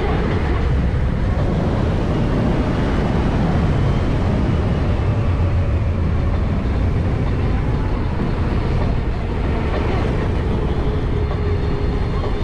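Wind rushing over the microphone while riding a high-voltage DIY electric motorcycle, with a faint motor whine that drifts slightly up and down in pitch.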